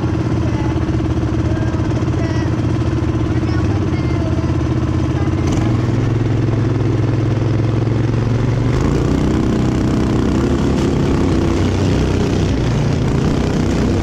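Off-road go-kart engine idling steadily, then opened up about nine seconds in as the kart pulls away across the field.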